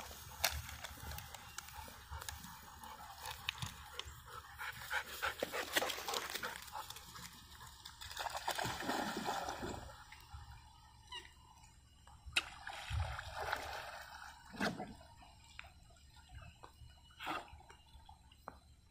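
Rustling and brushing through tall wet grass, with many short crackles, as a golden retriever trots through it. About halfway through this gives way to quieter water sounds: dogs paddling in a pond, with gentle sloshing and a few small splashes.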